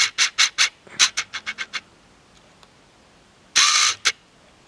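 Quick rhythmic scratching strokes, about five a second, fading out about two seconds in, then one louder rub near the end.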